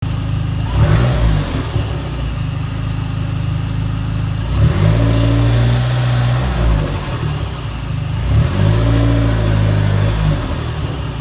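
Dodge SRT-4's turbocharged 2.4-litre four-cylinder engine idling and blipped three times, about four seconds apart, each rev rising quickly and dropping back to idle.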